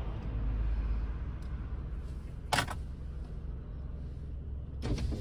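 A car passing close by on the street, its low engine and tyre rumble strongest in the first second or so and then fading away. A single sharp click comes about two and a half seconds in.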